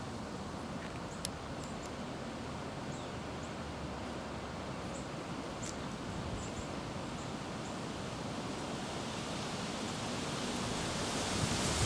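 Steady outdoor background hiss with a few faint, short high chirps. It grows slowly louder near the end.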